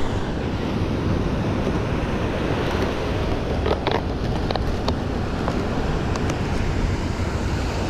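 Steady wind noise on the microphone over the wash of surf on the beach, with a few faint clicks near the middle.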